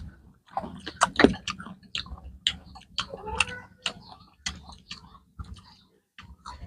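Several people eating crisp star gooseberries in a sour-spicy salad: crunchy chewing and mouth smacks, with spoons clicking on the bowl, as a string of irregular sharp clicks.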